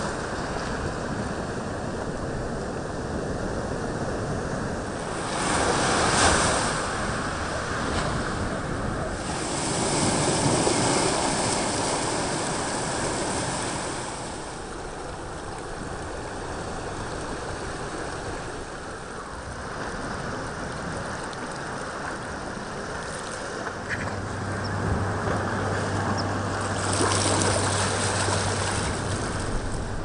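Ocean waves washing onto a rocky shore, rising and falling in surges a few seconds long. A low steady hum joins in near the end.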